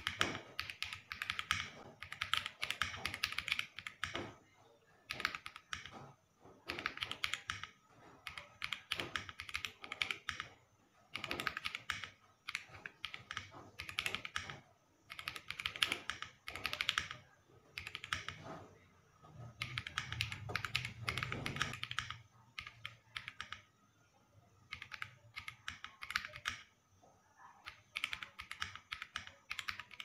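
Mechanical keyboard with Zuoce Litchi Milk tactile switches being typed on in quick runs of keystrokes with short pauses between them, each key giving a crisp, clacky click. About two-thirds of the way through, a deeper thud sits under the clicks for a couple of seconds.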